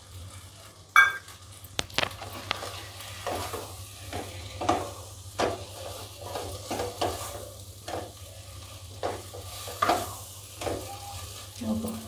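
Wooden spatula stirring and tossing instant noodles in a hot wok, scraping and knocking against the pan about twice a second over a light sizzle, with a sharp knock about a second in.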